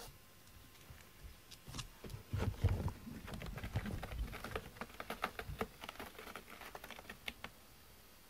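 Cat clawing at a carpet-topped scratcher: a run of quick, irregular scratching clicks lasting several seconds, with a few dull thuds a couple of seconds in.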